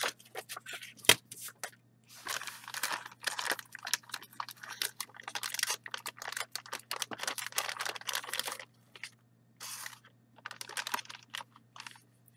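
Crinkling and rustling of a plastic anti-static bag as it is opened and slid off a graphics card, in irregular bursts, with a sharp click about a second in.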